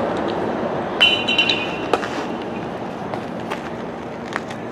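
A sharp metallic ping about a second in that rings for about half a second, like an aluminum bat hitting a baseball, followed by a few faint knocks over a steady outdoor hum.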